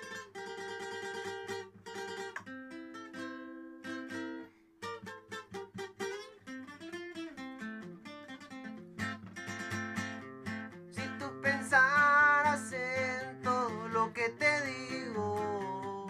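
Instrumental song intro: a plucked acoustic guitar melody over bass notes. About eleven seconds in, a louder lead melody with a wavering pitch joins.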